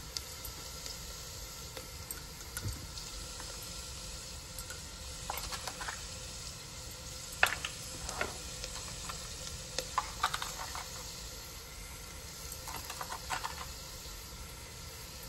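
Masala frying in oil in an aluminium pressure cooker on a gas burner, a steady sizzle just after salt and chilli have gone in. A metal ladle clinks and scrapes against the pot several times as it is stirred.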